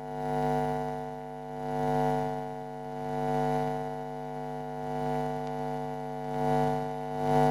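Steady low electronic drone with many overtones, the background tone of an emergency alert broadcast, swelling and fading about every second and a half.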